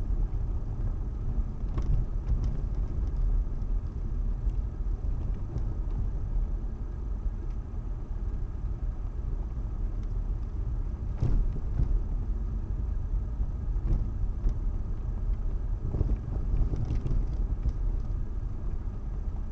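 A car in motion with a steady low rumble, punctuated by irregular sharp knocks from its suspension, about five of them, the loudest a little past halfway. The knocking is the fault being shown: a knock in the suspension.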